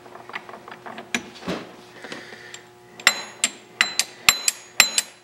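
Steel gears in a Monarch 12CK lathe's gear train being moved by hand, meshing into engagement. Light metal clicks, then from about three seconds in a quick run of sharp, ringing metal clacks.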